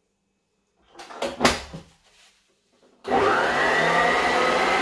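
A couple of brief knocks and clatter about a second and a half in. Then, about three seconds in, a stand mixer's electric motor switches on: its whine rises as it spins up, then runs steadily at medium-to-high speed while the paddle beats butter into vegetable shortening.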